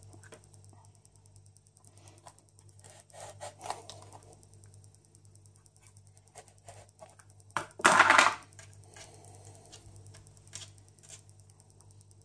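Round plastic dough cutter pressed and turned through rolled-out dough on a countertop: faint scrapes and small clicks, with one louder scrape about eight seconds in.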